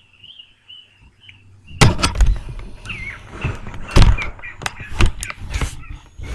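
A laptop being handled and its screen tilted, picked up close by its own microphone: a run of loud knocks and thumps with rubbing between them, starting about two seconds in.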